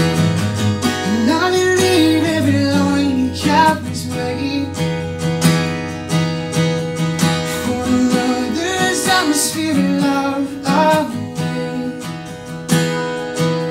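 Acoustic guitar with a capo, played in a steady strummed and picked pattern. A melody line bends up and down in pitch above it twice.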